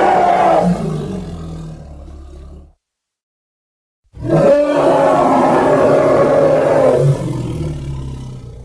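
Designed monster roar sound effects for Red Hulk. A roar trails off into a low rumble and cuts to silence. About four seconds in, a second long roar starts suddenly and fades into a low rumble near the end.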